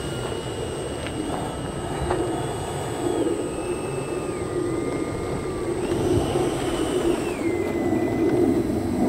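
Electric ducted fans of model jets whining over a steady rush of air, several at once. Their pitch steps up and down as the throttles are worked, dropping about halfway and rising again around six seconds in, and the sound grows slightly louder near the end.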